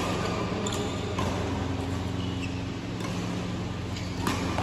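Badminton rackets striking a shuttlecock in a rally: a few sharp pings spaced about a second apart, over a steady low hum.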